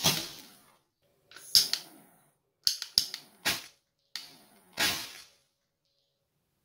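Small charges of sodium picrate going off with a series of sharp cracks as they are lit with a butane torch, including one wrapped in a foil packet. There are about seven cracks of varying loudness over some five seconds, with silence between them.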